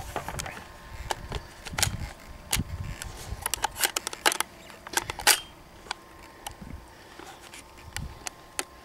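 Irregular clicks, knocks and rattles of a rifle being handled, getting ready to fire, busiest in the first five seconds with the sharpest clack at about five seconds, then a quieter stretch.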